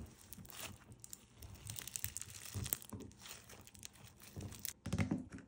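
Blue slime packed with white foam beads being squeezed and pulled apart by hand, giving soft, irregular crackling as the beads shift and the slime stretches. The crackling grows a little louder near the end.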